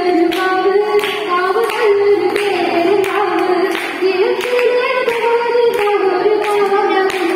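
A girl singing solo into a microphone without accompaniment, her voice carrying long held notes that slide smoothly between pitches.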